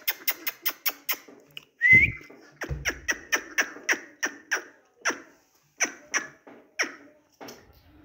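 African grey parrot making a rapid run of sharp clicks, about four or five a second. A short rising whistled squeak about two seconds in is the loudest sound, with a low thud under it.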